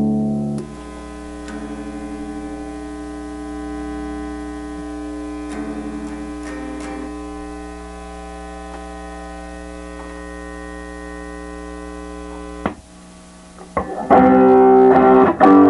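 Schecter C1 electric guitar played through a breadboarded transistor distortion circuit into a Bugera amp: a distorted chord rings and sustains for several seconds over a steady mains hum, with a few notes changing. The sound cuts off suddenly after about twelve seconds, then loud distorted strumming starts near the end.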